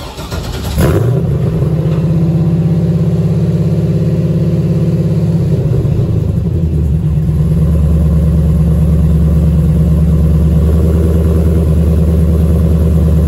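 LS6 V8 cranking briefly and catching just under a second in, then idling steadily through its exhaust, its note dropping lower about halfway through. It sounds perfect here: no knock at idle.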